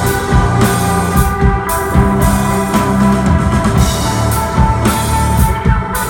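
Live instrumental rock band playing: a drum kit with repeated cymbal and drum hits over sustained electric guitar and bass.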